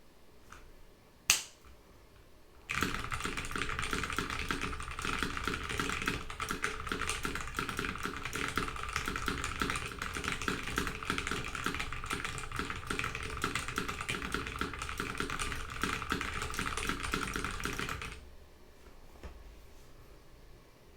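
Very fast typing, about 197 words a minute, on a Drop ALT mechanical keyboard with lubed Gateron Yellow linear switches and ABS DSA keycaps: a dense, even clatter of keystrokes that starts about three seconds in and stops abruptly near eighteen seconds. One single sharp click, the loudest sound, comes just over a second in.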